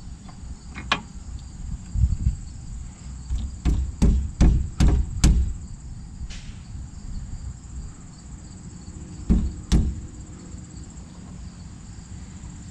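Sharp knocks and taps as the oiled differential cross pin is worked into the rear axle carrier of a 2003 Dodge Ram 1500: one about a second in, a quick run of five around four to five seconds in, and two more near the tenth second.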